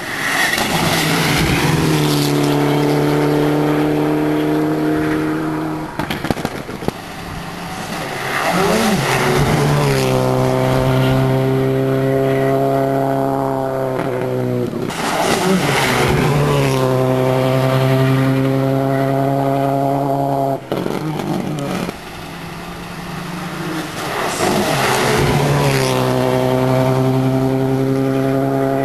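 Rally car engine running at high revs in long, nearly steady pulls as the car approaches, each pull rising at first and then holding. The pulls are broken by short lifts or gear changes about six, fourteen and twenty-one seconds in.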